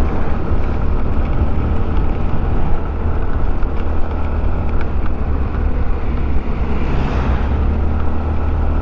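Steady low rumble of wind on the microphone and engine noise from riding a vehicle, with a brief louder swell about seven seconds in.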